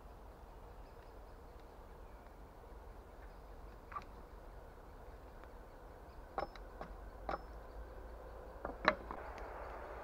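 An axe knocking on wood: a few sharp, irregular strikes, the loudest pair near the end, over a faint steady outdoor background.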